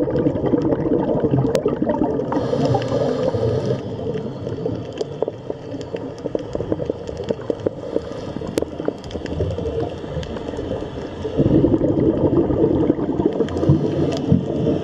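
Underwater gurgling and bubbling of a scuba diver's exhaled breath, with a short hiss of inhalation through the regulator about two and a half seconds in and a fresh burst of bubbles near the end. Faint crackling clicks run underneath.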